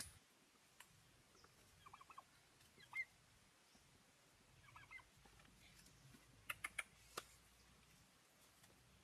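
Faint chicken clucking in a few short, quick bursts, with a few sharp clicks about two-thirds of the way through.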